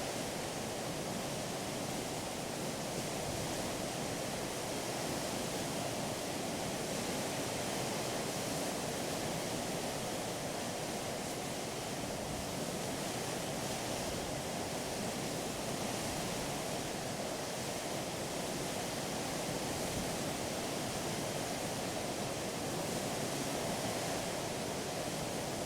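Water rushing and washing steadily along the hull of a moving ship, an even rush with no distinct splashes.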